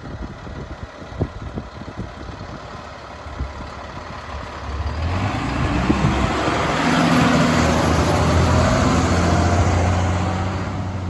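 Fire engine's engine running as it approaches and drives past close by, growing loud about five seconds in, with tyre and road noise.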